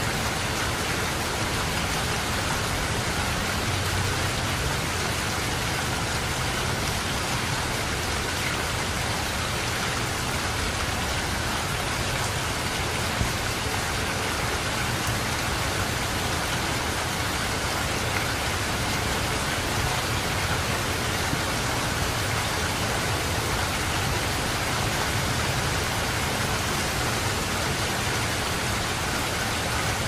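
Steady rain falling, an even hiss that keeps on without breaks.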